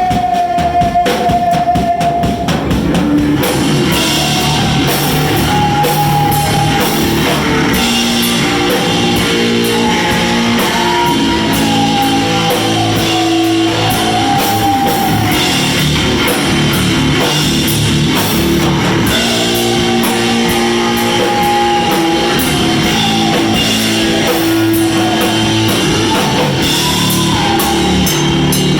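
Live rock band playing: guitars and a drum kit with cymbals, and a lead line of long held notes that bend slowly up and down above the chords.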